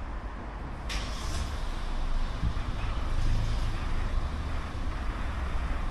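Car pulling slowly out of an automatic car wash bay: a low steady rumble that swells a little midway, with a short hiss about a second in.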